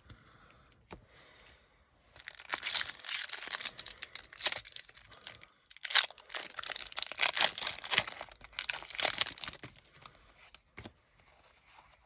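A foil booster-pack wrapper being torn open and crinkled. It crackles and rustles in bursts from about two seconds in until near the end, with a few sharp snaps.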